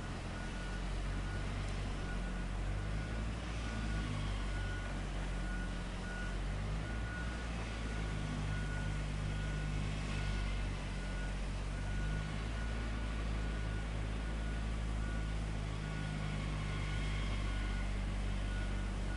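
A heavy vehicle's diesel engine running steadily, with a reversing alarm giving short, evenly spaced high beeps.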